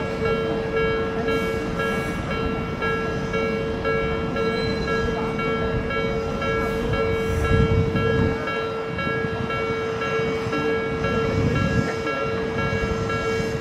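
Japanese level-crossing warning bell ringing in fast repeated strokes, over the rumble of an Odakyu 3000 series electric train running through the crossing. The rumble swells about halfway through and again near the end.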